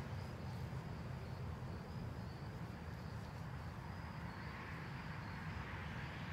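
Steady outdoor background noise: a low rumble with a faint, wavering high trill above it.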